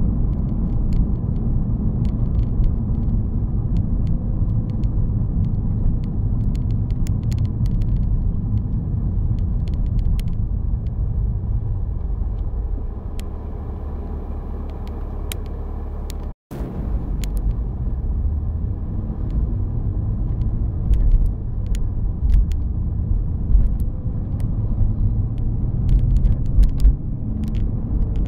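Car road and engine noise heard from inside the cabin: a low steady rumble with scattered light clicks and rattles. It eases off for a few seconds while the car waits at a red light, cuts out for a split second about two thirds of the way through, then rises again as the car moves off.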